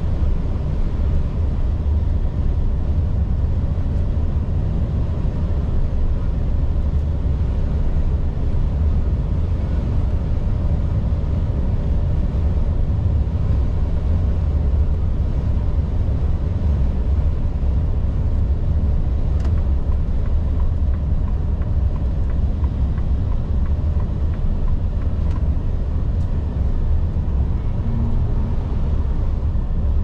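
Volvo FH 460 truck on the move: a steady low rumble of its 13-litre six-cylinder diesel engine together with road noise, holding an even level throughout.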